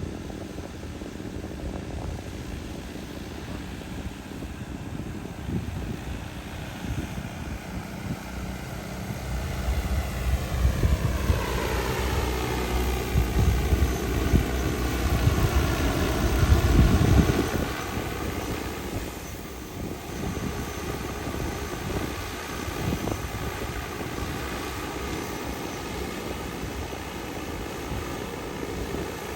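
DJI Agras T30 six-rotor crop-spraying drone flying past with a multi-rotor buzz, growing louder towards the middle with a low rumble and its pitch falling as it goes by, then continuing more steadily as it moves away.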